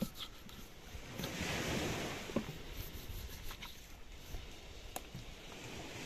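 Surf washing ashore with wind on the microphone, swelling once about a second and a half in, with a few faint sharp knocks scattered through.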